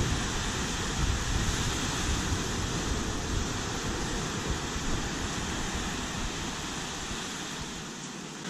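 Steady noise of sea surf breaking on the beach, with wind rumbling on the microphone; the wind rumble dies away near the end.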